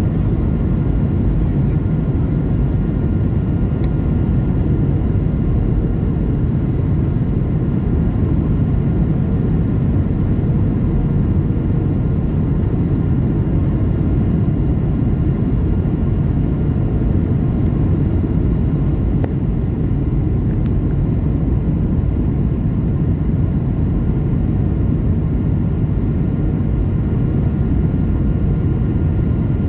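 Steady cabin noise inside a Boeing 737-800 with CFM56 engines: a loud low rumble of engines and airflow, with faint steady whine tones above it.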